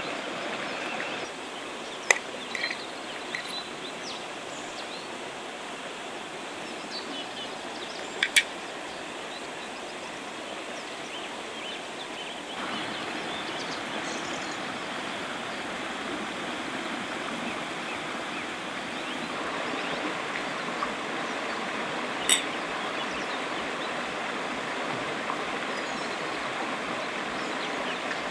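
Shallow river running over rocks, a steady rush of water that shifts in level a couple of times. A few sharp clicks stand out over it: about two seconds in, a double click around eight seconds, and one more past twenty seconds.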